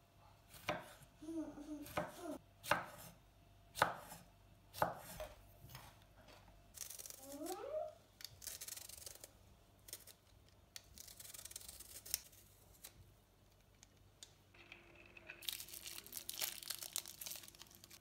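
A kitchen knife chopping a red chili pepper on a wooden cutting board, about six sharp knocks spaced roughly a second apart. Then a julienne peeler rasps in repeated strokes along a carrot, and near the end a longer rustling noise.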